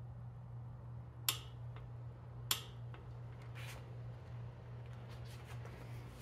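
Click-type torque wrench clicking twice, about a second apart, as the oil pickup tube bolts reach their 50 Nm setting, followed by fainter metal clinks of tools, over a steady low hum.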